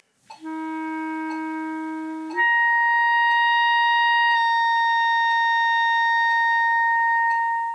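B-flat clarinet holding a low written F, then jumping up a twelfth to written C with the register key about two seconds in. About two seconds later the register key is let go and the same high note goes on as an overtone, held by voicing alone, with a slight change in its colour; such overtones sit slightly out of tune.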